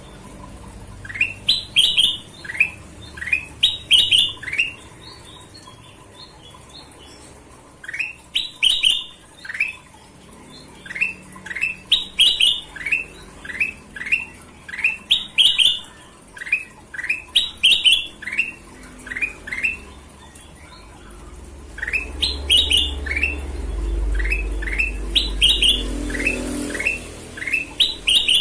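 Kutilang emas, a bulbul, singing repeated phrases of quick upward-sweeping whistled notes, several notes to a phrase, with short pauses between groups. A low rumble sits under the song for a few seconds near the end.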